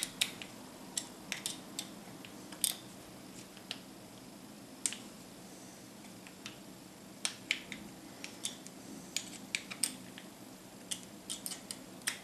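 Small metal parts, a screw and a thin steel rod, clicking and tapping irregularly against each other and a round wooden knob as they are handled and fitted by hand, over a faint steady low hum.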